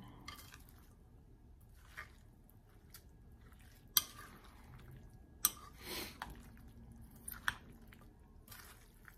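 A metal spoon stirring chunky guacamole in a cut-glass bowl: soft wet squishing of avocado and chopped vegetables, with a few sharp clinks of the spoon against the glass.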